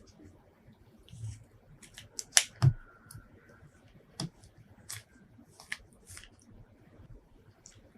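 Close-miked ASMR eating sounds: scattered sharp, wet clicks and smacks, the loudest a pair of snaps about two and a half seconds in.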